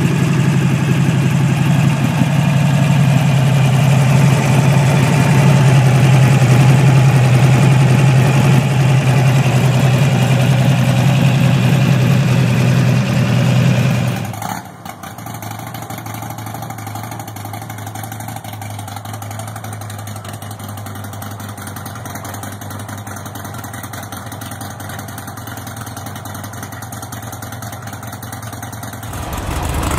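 Buell Lightning motorcycle V-twins idling steadily, one after another. The first is loud; after a sudden cut about halfway, a second one idles more quietly.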